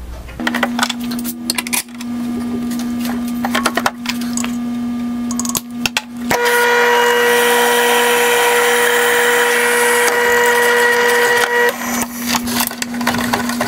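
An electric power tool's motor runs with a steady hum, with scraping and clicking over it. About six seconds in, a louder stretch of whining, grinding cutting into metal lasts around five seconds, then drops back to the hum.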